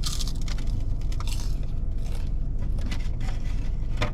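Utensil scraping and clicking against a takeout food container while rice is scooped out, over a steady low hum.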